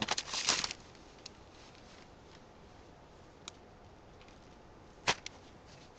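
A handful of aspen wood-shaving bedding rustling as it is dropped into the cage, lasting under a second; then mostly quiet with a few faint clicks and a light knock about five seconds in.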